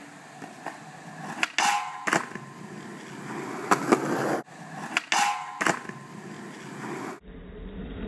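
Skateboard wheels rolling on a concrete driveway, broken by several sharp clacks of the board striking the ground.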